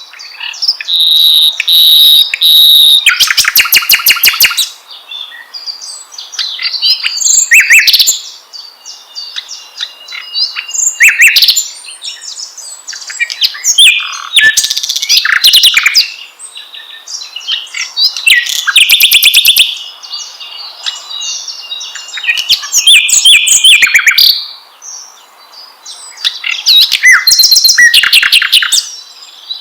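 Songbird singing in loud, varied phrases of about one to three seconds: clear whistles mixed with rapid buzzy trills and harsh chirps, with quieter chatter between the phrases. This is a 'pancingan' lure song, played to set caged songbirds singing.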